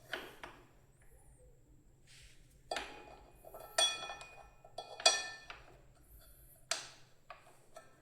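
Metal parts of a motorcycle rear brake caliper and pads clinking and knocking as they are fitted. There are about five sharp clinks; the two loudest, near the middle, ring briefly.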